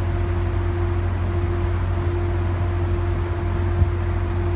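Caltrain commuter train's steady drone: a low rumble with one steady hum tone above it, and a single small knock near the end.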